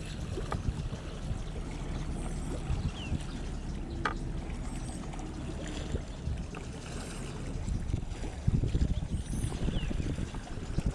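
Passenger fast ferry's engines running with a steady low drone while water pours from outlets in its hull side and splashes into the sea.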